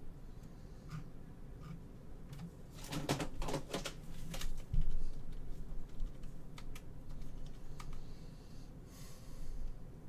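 Computer keyboard typing: scattered key clicks, with a quick run of louder keystrokes about three to four seconds in.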